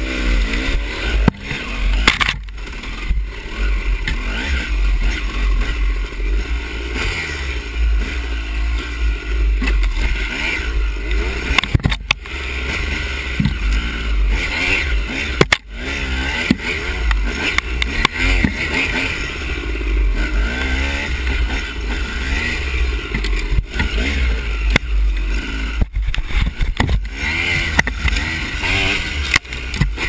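Dirt bike engine revving up and down as it is ridden along a rough trail, heard close from a handlebar-mounted camera, over a heavy low rumble. Several sharp knocks from bumps come through, one about 12 seconds in and one near 15 seconds.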